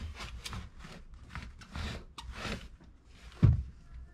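Cleaning and handling noises: a run of short, irregular rubbing and scuffing strokes, with one heavy thump about three and a half seconds in.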